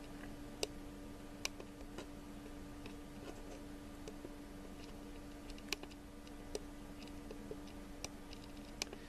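Small plastic button clicks from a Samsung HMX-F80 camcorder's controls as its menu is stepped through during recording, picked up by the camcorder's own microphone. The clicks are sharp, single and irregular, a few seconds apart at most, over a faint steady hum.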